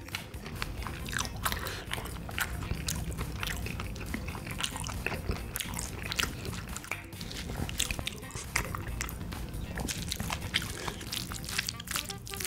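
Close-miked chewing of spicy boneless chicken feet and rice: wet mouth clicks and smacks coming thick and fast, with a spoon stirring and scraping the rice in a bowl.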